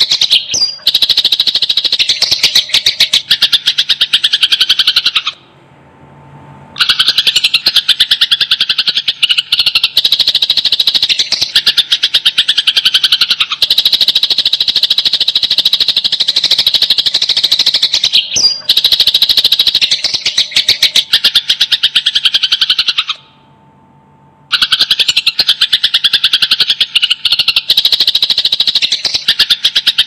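Sparrows giving rapid, dense strings of sharp chirps, the agitated calling of fighting sparrows. The chirping stops twice for about a second and a half, about 5 seconds in and about 23 seconds in.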